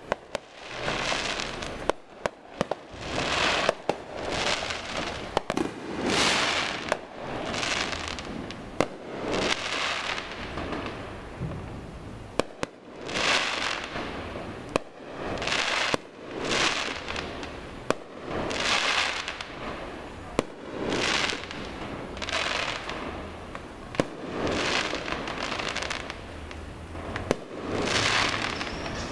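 Fireworks going off repeatedly: sharp bangs mixed with crackling bursts, one every second or two.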